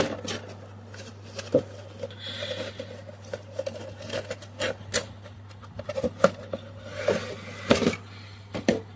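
Cardboard box of a diecast model car being opened and its contents handled: scattered clicks, taps and short rubbing swishes of cardboard and plastic packaging, over a steady low hum.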